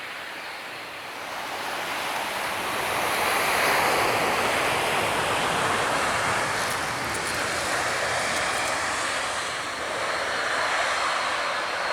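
Jet airliner engines rising to a loud rush over the first few seconds as it passes low overhead, then holding steady, with surf washing underneath.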